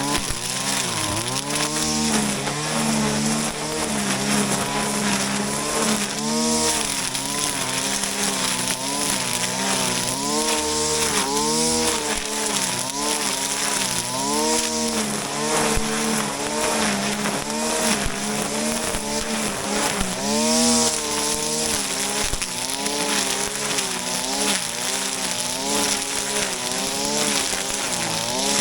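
Shindaiwa RK3026-PT 25.4 cc two-stroke brush cutter running at high throttle, its engine pitch dipping and recovering again and again as the cutting head bites into grass.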